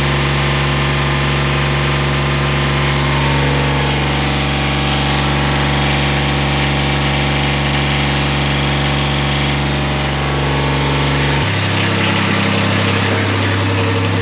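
Toro Greensmaster 3250-D's diesel engine, fitted with a new muffler, running steadily at high revs, with a shift in its tone about eleven seconds in. It is loud, which the owner says the new muffler has not changed.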